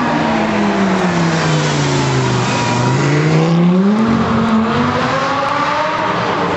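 A supercar's engine note drops steadily for about two and a half seconds, then climbs back up about four seconds in and holds steady.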